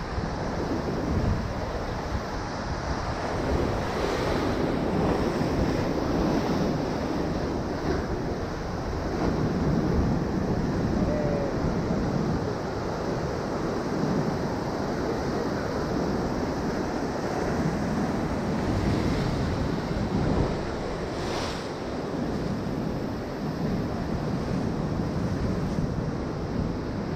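Sea waves breaking and washing over shore rocks in a steady surging roar that swells and eases, with wind buffeting the microphone.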